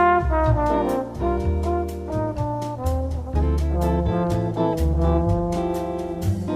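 Instrumental bossa nova music: a melody of held notes over a steady bass line and a light, evenly ticking beat.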